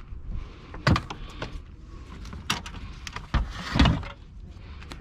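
A few sharp knocks and scraping clatters of hard plastic panels being worked loose and lifted out from around a car battery, the loudest about a second in and again near four seconds.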